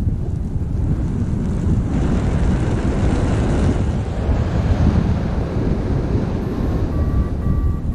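Loud, steady wind rushing over the microphone in flight, swelling into a brighter, hissing roar for a few seconds in the middle. Short electronic beeps, stepping in pitch, come back near the end.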